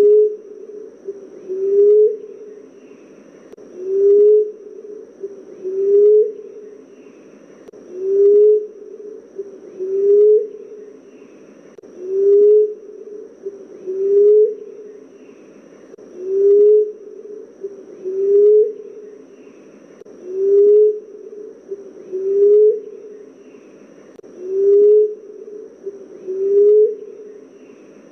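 Common emerald dove cooing: a low coo that rises slightly and ends with a short upward lift, repeated very evenly about every two seconds.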